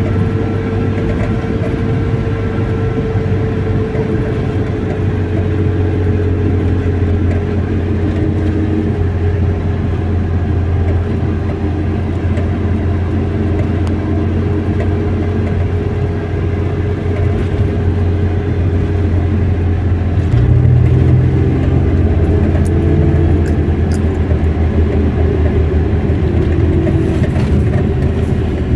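A car driving, with a steady engine and road drone; about twenty seconds in, the low engine note steps up.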